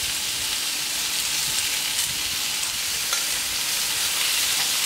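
Diced vegetables frying on the hot hard-chrome steel plate of a gas plancha: a steady sizzling hiss, with light ticks of spatulas turning them.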